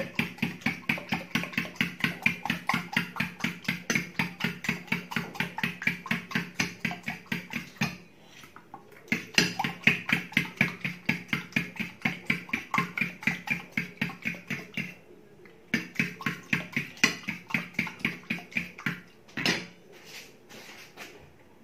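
Egg and milk mixture being beaten by hand in a bowl, a utensil clicking against the bowl about four to five times a second. The beating comes in three runs broken by short pauses about 8 and 15 seconds in, with a few separate knocks near the end.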